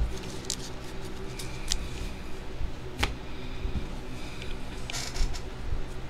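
Scattered light clicks and taps of plastic card holders being handled and set on stands on a table, over a steady low hum.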